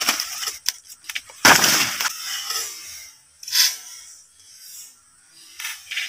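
Leaves and branches rustling and knocking as a person climbs down through a leafy tree: a few sharp clicks at first, a loud rush of rustling about a second and a half in, then shorter rustles.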